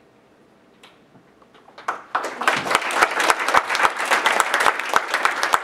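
A room of students applauding: a few scattered claps about a second in, then the whole audience joins in at about two seconds and keeps clapping steadily.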